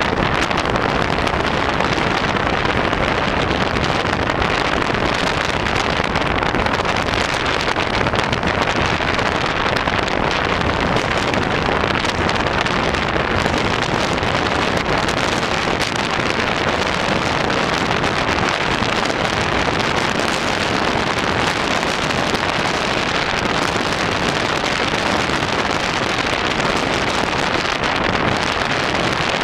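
Strong wind buffeting the microphone in a steady, unbroken rush, over rough sea breaking against rocky shore.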